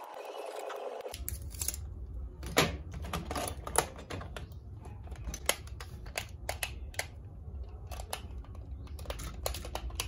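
Irregular sharp plastic clicks and taps as rechargeable cells are fitted into a toy RC car's chassis and its remote control is handled, after a brief rustle at the start, over a steady low hum.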